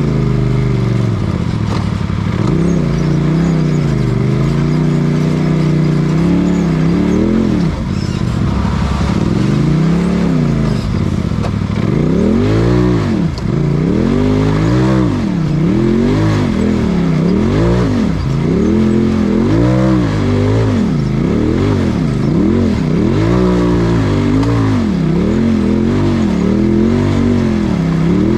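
UTV race buggy's engine heard from inside the cage, revving up and down again and again as the throttle is worked over rough ground. The revs swing slowly at first, then from about halfway rise and fall quickly, about once a second.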